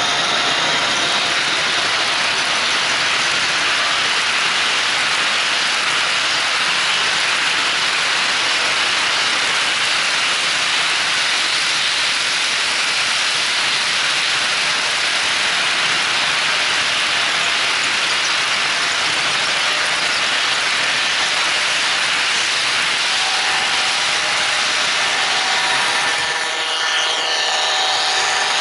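HO-scale model freight trains rolling past on two tracks at once: a steady rolling noise of metal wheels on the rails. A few steady tones join in near the end.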